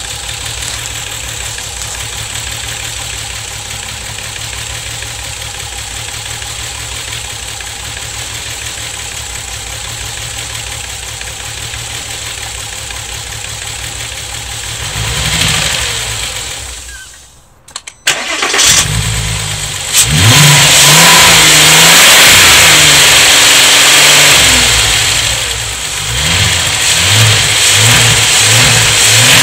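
Volkswagen VR6 12-valve engine idling roughly, shaking with a misfire that the owner traces mainly to cylinders 2, 3 and 6. About two-thirds of the way in it stops, is cranked and restarts, then runs much louder with the revs rising and falling.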